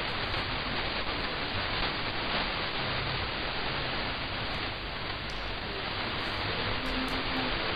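Shortwave radio static: steady hiss from a KiwiSDR receiver tuned to 5130 kHz, where the weak Afghan Radio signal is barely picked up under the noise.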